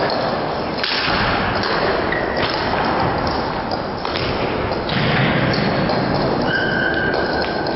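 Table tennis rally: the celluloid ball clicking off bats and bouncing on the table, sharp knocks over the echoing noise of a hall with other matches in play.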